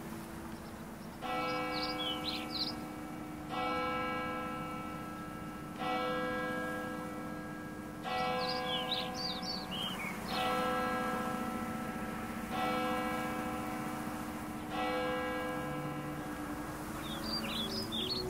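A church bell tolling: seven single strikes about two seconds apart, each ringing on as it fades. Birds chirp in short bursts over it, three times.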